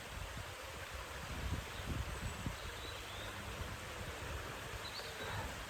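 Outdoor ambience: wind buffeting the microphone as an uneven low rumble over a steady hiss, with a few faint high chirps about three and five seconds in.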